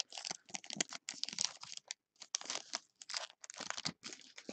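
Foil wrapper of a 2015 High Tek football card pack crinkling and tearing as it is ripped open by hand, in a quick run of irregular crackles.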